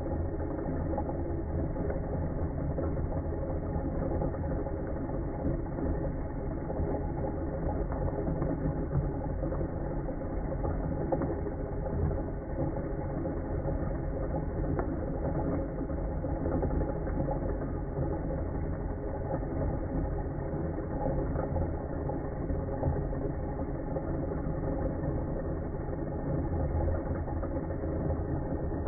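KitchenAid Magnetic Drive blender running steadily, its blade churning vanilla pods in liquid.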